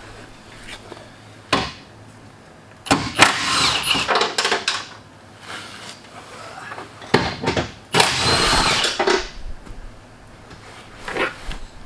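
Handheld power tool run in two bursts of about two seconds each, with a short knock before them, while the car's seats are being unbolted.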